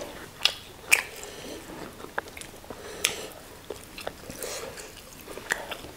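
Close-miked eating: chewing of fried tilapia and banku, with wet mouth sounds and a few sharp clicks scattered through.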